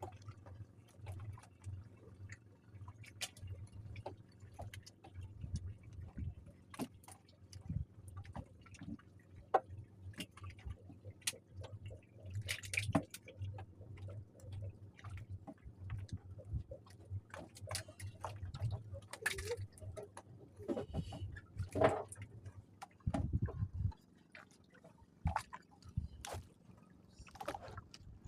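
Water splashing and sloshing with many irregular knocks and clicks, over a steady low hum that drops out about three-quarters of the way through.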